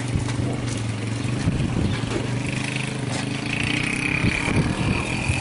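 A vehicle engine idling, a steady low hum, with a thin high steady sound joining about halfway through.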